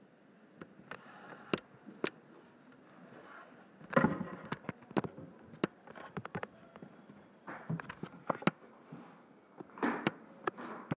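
Scattered sharp clicks and taps with a few short rustling, scraping bursts, the loudest about four seconds in: handling noise of fingers tapping and dragging puppets across a tablet touchscreen, picked up by the tablet's own microphone.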